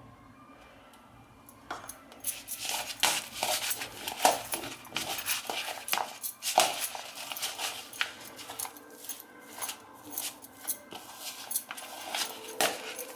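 Raw peanuts coated in damp gram-flour batter being mixed in a bowl: irregular clicks and rattles of the nuts against the bowl, starting about two seconds in.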